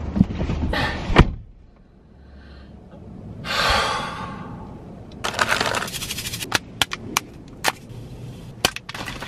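A person getting into a car seat, with a sharp thump about a second in as the car door shuts and the outside noise drops away. Then a long, out-of-breath exhale, followed by a rapid run of crinkles and clicks from a paper powder packet being torn open and poured into a plastic water bottle.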